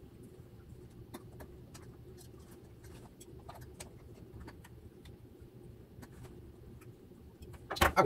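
Faint, scattered clicks and taps of hands working the plastic retention clips of a stock AMD Wraith Prism CPU cooler onto a motherboard, over a low steady hum. A louder clatter comes right at the end.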